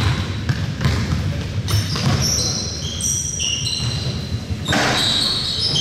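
Basketball game play on a hardwood court: a ball bouncing, sneakers squeaking in short high chirps, and a sharp impact about five seconds in, all echoing in a large gym.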